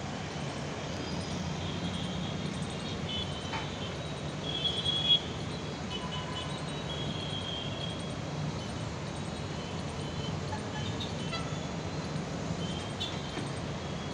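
Steady low hum of city traffic, with thin high tones coming and going and a brief louder sound about five seconds in.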